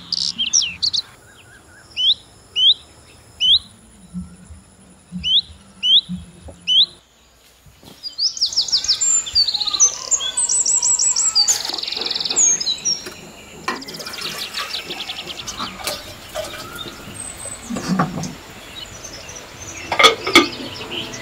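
Birdsong: one bird repeating short downward-sweeping whistled notes, mostly in pairs, then after a brief pause a busier chorus of chirps and fast trills from several birds. A few knocks near the end.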